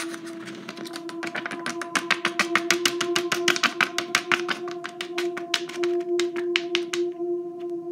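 A rapid run of sharp clicks, about eight a second, over a steady humming tone. The clicking builds about two seconds in and thins out near the end.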